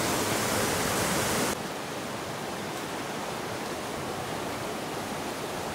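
Steady rushing of a creek's flowing water. It drops to a quieter, duller rush about a second and a half in.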